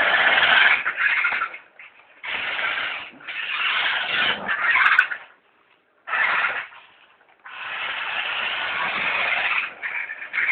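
Radio-controlled car's motor and drivetrain whirring as it is driven in repeated bursts, starting and stopping about six times, with short pauses in between.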